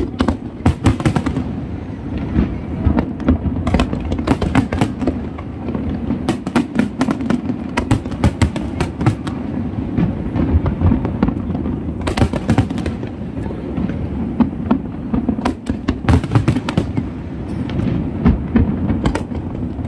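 Aerial firework shells bursting and crackling, sharp bangs coming in dense rapid clusters, over a steady low background din.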